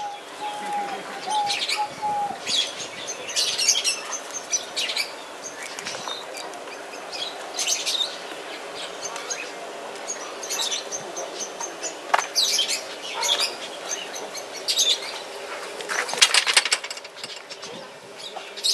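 Small birds chirping in short, scattered bursts, with a brief run of four quick notes near the start.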